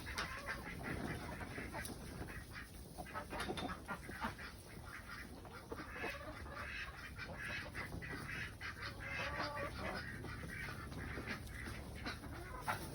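A flock of ducks quacking and calling intermittently, with scattered short clicks and rustles.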